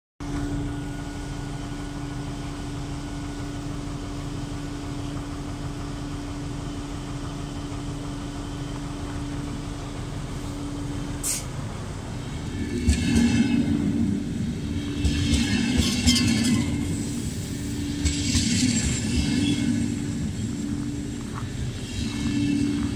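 A diesel locomotive's engine drones steadily with a low hum. From about twelve seconds in, an arriving passenger train rolls past with a heavy rumble of wheels on rail, and high brake and wheel screeches come several times as it slows into the station.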